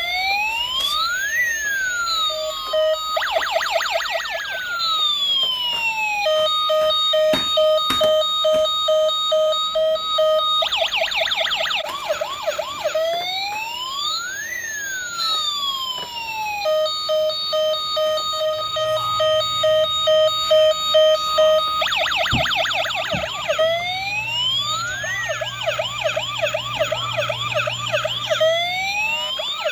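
Battery-powered toy emergency van's electronic siren, cycling through its patterns: a slow rising and falling wail, a rapid yelp, and a fast run of beeps over a steady tone. The cycle repeats about every ten seconds.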